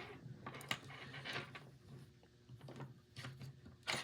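Faint handling sounds of a resistance soldering station's ground strap and clip: scattered light clicks and rustles, with one sharper click near the end.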